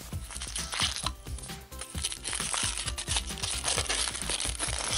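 Thin aluminium foil wrapper crinkling and tearing as it is peeled by hand off a milk chocolate egg, with background music.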